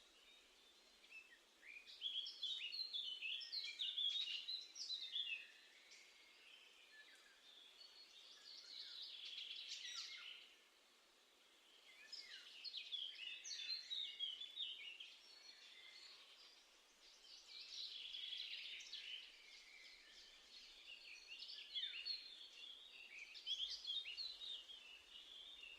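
Garden songbirds singing and chirping outdoors, in several bouts of quick twittering phrases a few seconds long with short pauses between.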